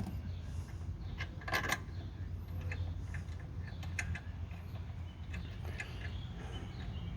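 Scattered light metallic clicks and clinks of hand work on a disc brake caliper, as its bolts and parts are handled and fitted, over a steady low hum.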